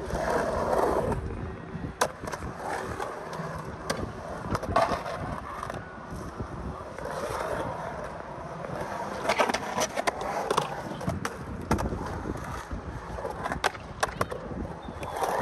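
Skateboard wheels rolling and carving on a concrete bowl, with many sharp knocks and clacks of the trucks and board along the way.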